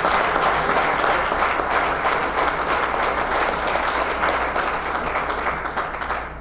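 Audience applauding steadily, a dense patter of many hands clapping, which cuts off suddenly at the end.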